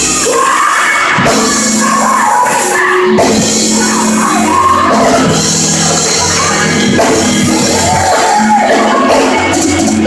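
Loud live gospel praise music from a church band: a drum kit playing under held instrument tones, with singing and shouting voices over it.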